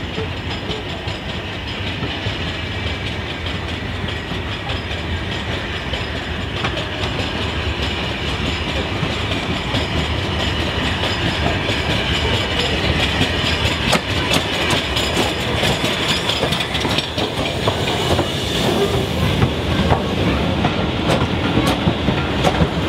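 LMS Jubilee Class three-cylinder 4-6-0 steam locomotive 45596 Bahamas and its coaches running into a station platform: a steady rumble that grows louder, with wheels clattering over the rail joints as the coaches pass in the second half.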